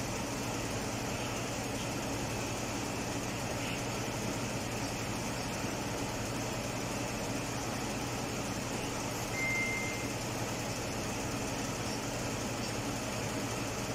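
Mazda CX-9 engine idling steadily, with a short high tone about nine and a half seconds in.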